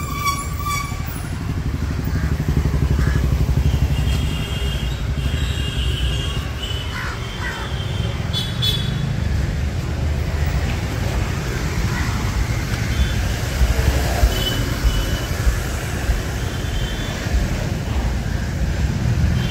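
Street traffic: motorcycles and cars passing with a steady low engine rumble, and a few short high-pitched beeps or chirps now and then.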